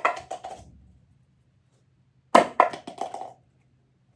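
A light plastic object dropping and bouncing on a hard floor, twice: each time a sharp first clack followed by a quick run of fading smaller clicks.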